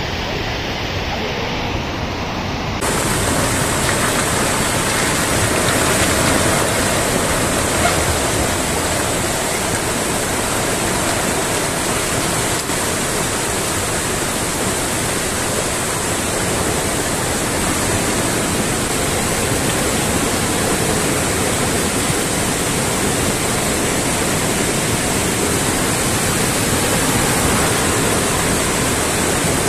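Steady, loud rushing of muddy floodwater in a swollen mountain torrent. About three seconds in, it cuts to a different recording: a brighter, hissier steady rush of water that goes on unchanged.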